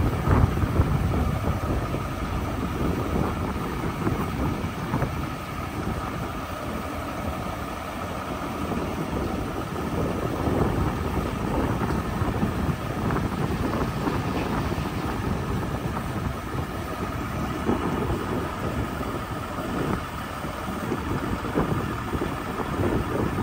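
Ford LT8000 truck engine running steadily while its hydraulic hoist raises the grain box.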